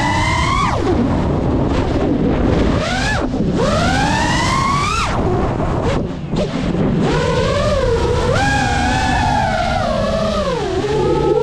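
GEPRC Mark5 FPV quadcopter's brushless motors and propellers whining. The pitch climbs steeply on several throttle punches and drops sharply when the throttle is cut, with a short lull about six seconds in, over a steady low rumble of wind on the microphone.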